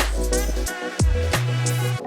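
Background music with heavy bass and a hip-hop style drum beat.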